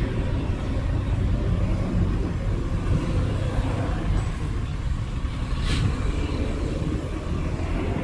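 Heavy diesel earthmoving equipment working, a steady low rumble, with a brief hiss a little before six seconds in.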